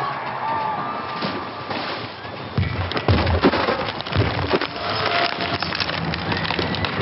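Designed sound effect of the Titanic's hull breaking apart: dense cracking and splintering over a wash of noise, with heavy low crashes coming in about two and a half seconds in.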